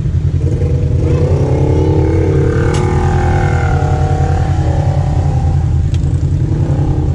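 Side-by-side UTV engine revving up and down as the machine pushes through a muddy water hole, over a steady low rumble. The revving is strongest about a second in and eases off after about five seconds.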